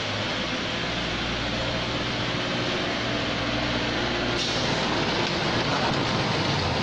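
Snack packaging line running: a dense, steady machinery noise with a low hum. About four seconds in the hum stops and the noise turns brighter and hissier.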